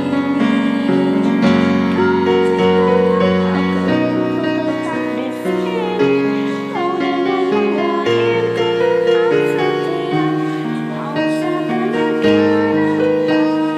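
Instrumental interlude of a pop-ballad karaoke backing track, with no singing: held piano and keyboard chords under a moving lead melody line.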